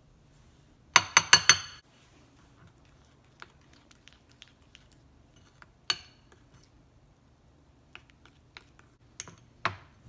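A metal spoon and grater clinking against a glass bowl of lemon glaze: four quick, ringing clinks about a second in as the zest is knocked off the grater, then light scraping and scattered clinks of the spoon stirring, with a sharper clink near the end.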